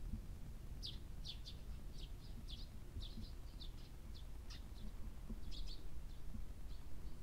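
A small bird chirping in a quick series of short, high notes, over a steady low background rumble.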